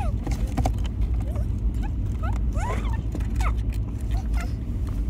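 Short, squeaky, high-pitched vocal glides from a voice sped up into a chipmunk effect, heard every second or so over a steady low rumble of a slow-moving car.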